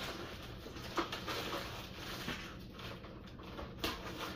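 Plastic poly mailer bag rustling and crinkling as it is handled, with a light click about a second in and another near the end.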